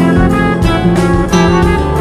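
Background music with a steady beat: instrumental, with plucked guitar-like notes and a bass line.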